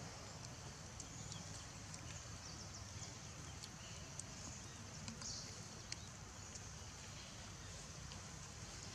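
Faint outdoor forest ambience: a steady high-pitched hiss with a low rumble beneath, broken by a few small sharp clicks.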